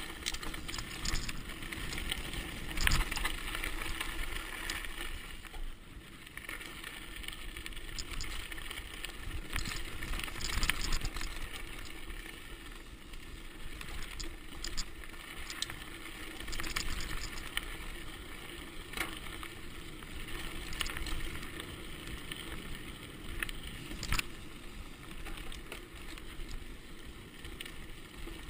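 Mountain bike rolling fast down a dirt and gravel track: a steady rush of tyres on the loose surface and the bike rattling, with sharp knocks now and then as it hits bumps.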